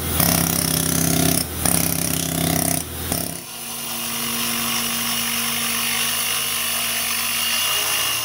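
A pneumatic stone-carving tool on its air hose working against stone in three short runs, then, from about three and a half seconds in, an angle grinder cutting into stone with a steady whine.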